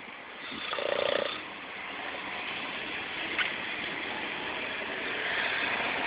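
Someone snoring. One louder snore comes about a second in, then a steady breathy hiss.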